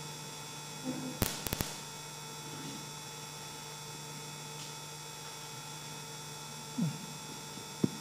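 Steady mains hum through the sound system, with three sharp clicks about a second and a half in from a handheld microphone being passed and handled. A few faint taps come near the end.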